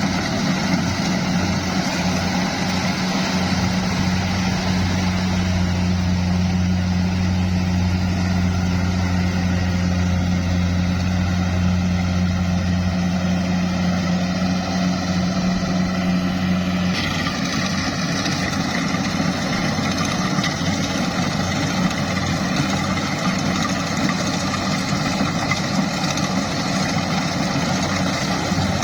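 Engine of a farm machine running steadily at field work. About 17 seconds in, its deep low hum drops away and a higher-pitched mechanical whine takes over.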